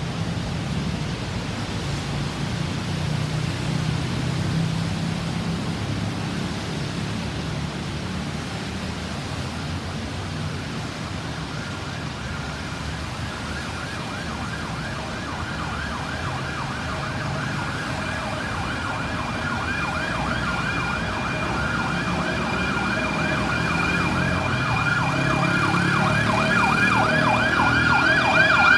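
Road traffic rumble, then from about halfway an emergency vehicle's electronic siren in a rapid warble, getting louder as the ambulance approaches.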